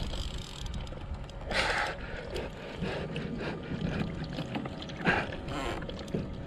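Water lapping and trickling against a plastic kayak's hull, with two short, louder rushes of noise, one about a second and a half in and one about five seconds in.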